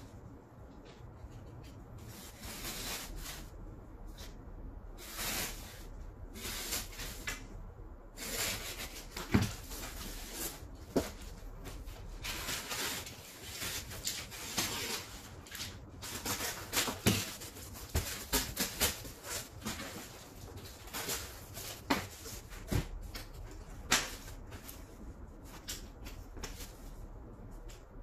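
A utility knife cutting through corrugated cardboard in an irregular string of short rasping strokes, with a few sharp clicks as the sheet is handled.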